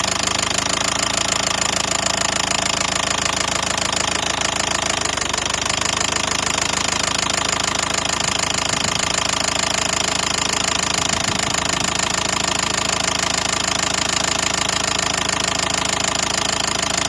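Nissan Qashqai 1.5 dCi four-cylinder diesel engine running steadily with a knock that has come on suddenly and seems to come from the top of the engine; listening with a stethoscope found it even across all the injectors, with no single injector or cylinder to blame.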